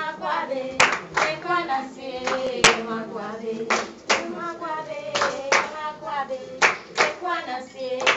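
A group of voices singing a chant, with hand claps keeping time throughout.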